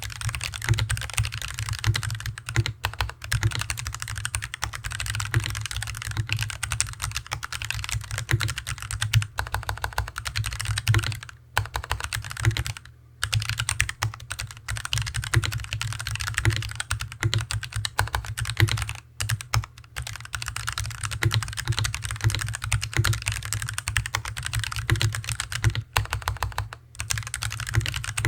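Continuous fast typing on a Hansung TFG ART mechanical keyboard with stock Artbox Red linear switches, with a steady stream of keystrokes broken by a few brief pauses. The desk resonates strongly under the keyboard, adding a heavy low thud to each keystroke.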